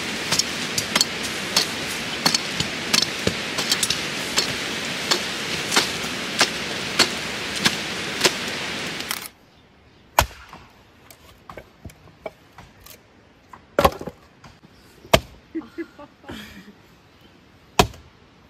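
A steady rushing noise, peppered with short sharp clicks about twice a second, stops abruptly about nine seconds in. After that it is much quieter, with a few isolated sharp knocks or chops.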